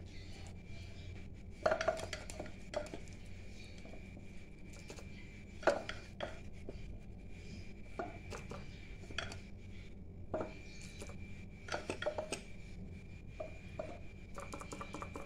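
Scattered light knocks and scrapes as crushed garlic is scooped out of a wooden mortar by hand and dropped onto a ceramic plate of minced mutton. A faint steady high whine runs behind it.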